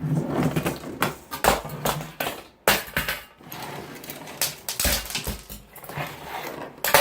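Objects being picked up, shifted and set down on a work surface as it is cleared: an irregular run of knocks, clatters and rustles.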